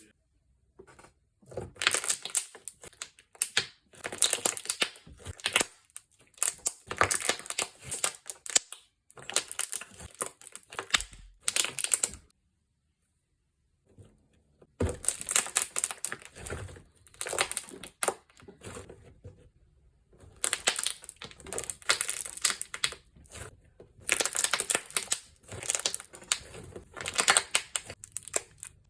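Slime being squeezed and pressed by hand, giving bursts of rapid pops and crackles from trapped air, each lasting a second or two with short pauses between. It goes silent for a couple of seconds about halfway through.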